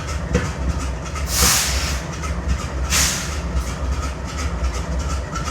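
GE Dash 9-44CW locomotive's V16 diesel idling with an uneven beat from a misfire, the engine running unwell. Two short hisses of air come about a second and a half apart, a little over a second in and again about three seconds in.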